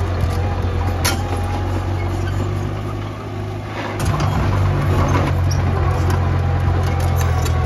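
Heavy machine's diesel engine running steadily with a deep drone, easing off briefly about three seconds in and picking up again near the four-second mark, with a metallic clank about a second in.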